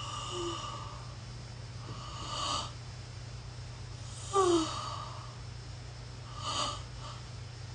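A woman's breathy gasps, about four of them two seconds apart. Some end in a short falling whimper, over a steady low hum.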